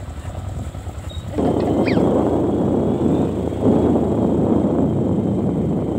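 Motorcycle engine running while riding along, with wind rushing over the microphone that gets louder about a second and a half in. Two short high chirps sound near the same moment.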